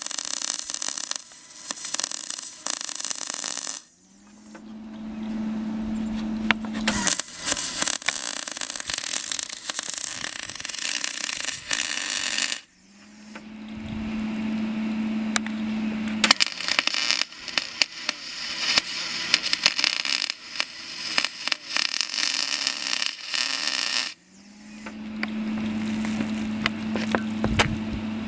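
Wire-feed welding arc on aluminum, crackling and spitting in three long runs with short stops in between. A steady low hum starts up after each stop.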